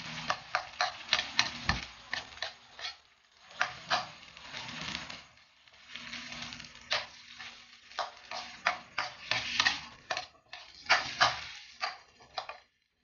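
Ham pieces frying and sizzling in a wok while a metal ladle stirs them, clicking and scraping against the pan many times.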